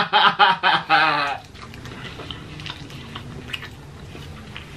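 A man laughing loudly in a quick run of 'ha' pulses, about four a second, breaking off about a second and a half in. After that only faint low mouth sounds and small clicks remain.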